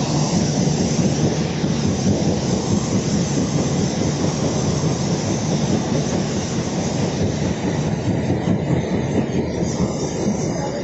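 Loud, steady mechanical rumble and clatter that does not let up, heaviest in the low range.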